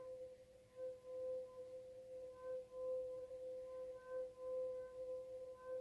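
Wine glass holding water, its rim rubbed with a wet finger so that it sings: one steady ringing tone with faint overtones, swelling and fading about twice a second.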